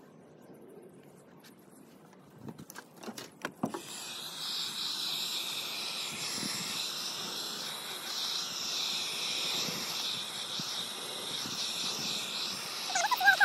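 Handheld heat gun blowing over wet epoxy resin, a steady hiss that starts about four seconds in, after a few clicks and knocks. A short high call near the end.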